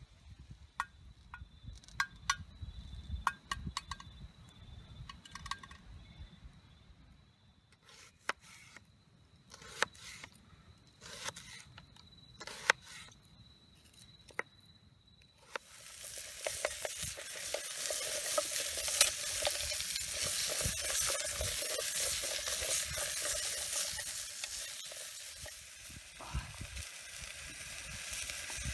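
Scattered clicks and knocks of cooking utensils, then about halfway through a sudden loud sizzle starts as food hits a hot pan and keeps frying steadily.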